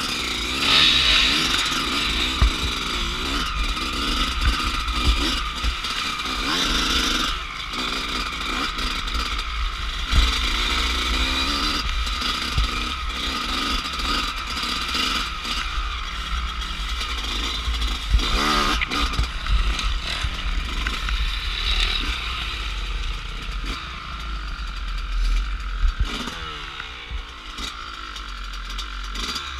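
Dirt bike engine running and revving up and down as the bike is ridden, with a steady low wind rumble on the helmet camera's microphone.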